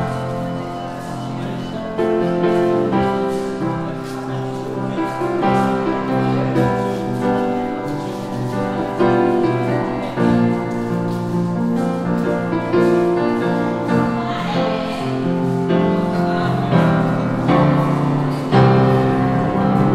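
Upright piano being played: a continuous run of chords and melody.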